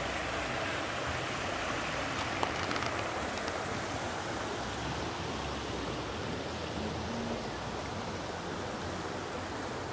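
Shallow river running over a stony bed: a steady rush of water through the riffles.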